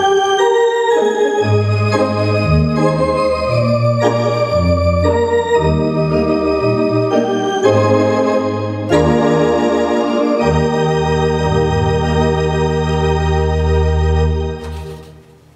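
Allen GW4 digital theatre organ playing a melody over pedal bass, then holding a long final chord that is released about a second before the end.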